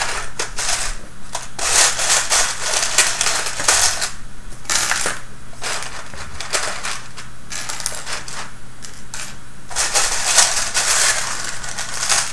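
Small plastic Robotis OLLO kit parts clattering as they are spilled out and stirred through by hand: a dense run of clicks, in several louder bursts.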